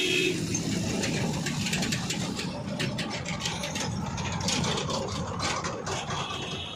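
Diesel engines of a JCB 3DX backhoe loader and a tractor hauling a trolley running on the road, a steady low rumble with scattered rattling clicks as the tractor passes close by.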